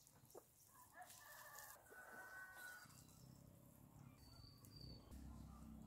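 A rooster crowing once, faint, for about two seconds, against quiet outdoor ambience.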